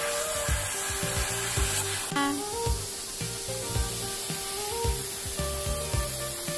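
Background music with a steady beat and held melody notes, over the hiss of a handheld shower sprayer running water onto a dog's coat.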